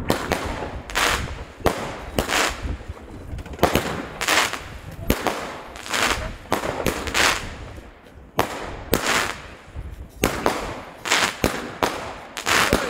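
Consumer firework battery (cake) firing shot after shot, a bit more than one a second. Each shot is a sharp bang followed by a short hissing burst.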